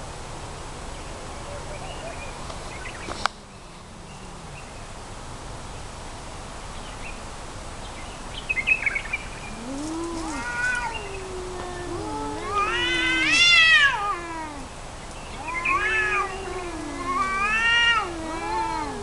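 Male cats caterwauling in a territorial standoff: long, wavering yowls that rise and fall in pitch. They begin about halfway through, peak a few seconds later and come again several times.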